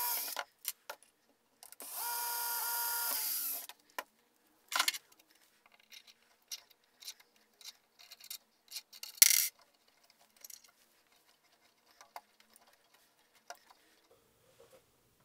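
Cordless drill with a 5/32-inch bit drilling out holes in a 3D printer frame's corner, stopping about half a second in, then running again for about two seconds at a steady pitch. After that come scattered small clicks and knocks of hand tools and a hand tap being turned into the hole, with one sharp click about nine seconds in.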